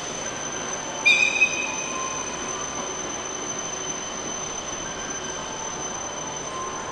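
EF81 electric locomotive pulling away over station pointwork, with one short, loud, high-pitched wheel squeal about a second in, over steady rail noise and a thin high steady tone.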